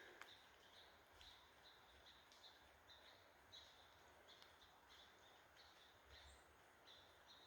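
Faint chipmunk chirps, short high calls repeated over and over about once or twice a second, as the chipmunks keep up their alarm calling.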